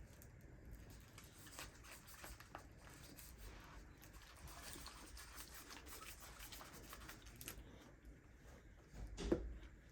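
Faint rubbing and scattered small clicks of slime being mixed and worked by hand, with a louder thud near the end.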